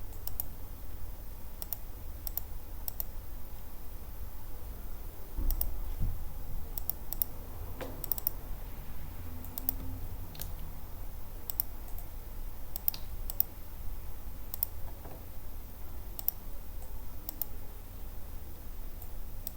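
Irregular clicking of a computer keyboard and mouse, a few clicks at a time with short pauses, over a low steady hum.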